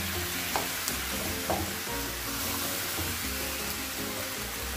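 Sliced unripe jackfruit in coconut cream and water sizzling in a hot pan as it comes up to the boil, a steady hiss with two faint clicks about half a second and a second and a half in.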